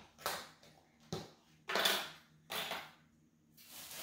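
Handling noise from beauty products and their packaging being moved about on a table: about five short rustling, clattering bursts with quiet gaps between them.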